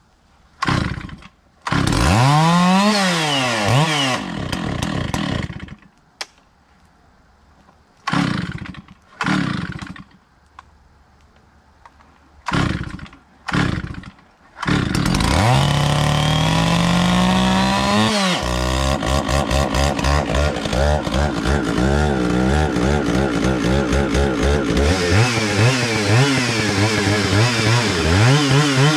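Stihl chainsaw being started: it catches and revs briefly, dies, and fires for a few more short bursts, then about halfway keeps running, revs up, and settles into an uneven, pulsing run under load as it cuts into oak.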